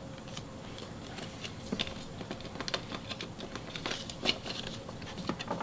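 Trading cards being handled by hand: a quiet, irregular scatter of light clicks and soft rustles as the cards are flipped and sorted.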